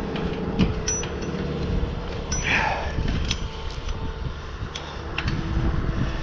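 Wind buffeting the microphone in a steady low rumble, with scattered sharp clicks and knocks and a brief call about two and a half seconds in.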